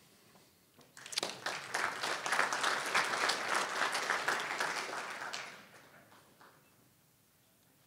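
A small audience applauding, hand claps starting about a second in and fading out after about five seconds.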